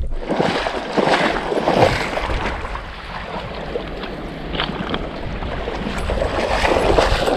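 River water rushing and splashing, with wind rumbling on the microphone.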